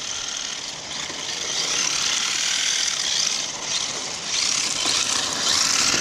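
Radio-controlled cars driving over gravel: a gear whine that rises and falls with the throttle, mixed with tyre crunch. It grows louder from about four seconds in as an RC truck comes close.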